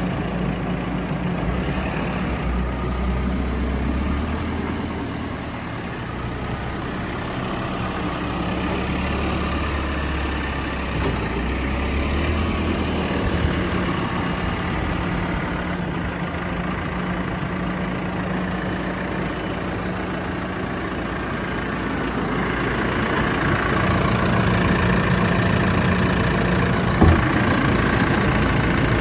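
JCB 3CX backhoe loader's diesel engine running steadily near idle, with small shifts in its note and one short knock near the end.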